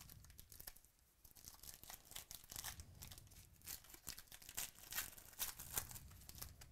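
A foil trading card pack of 2018 Chronicles Baseball torn open by hand: the wrapper crinkles and tears in a run of sharp crackles that grow louder toward the end.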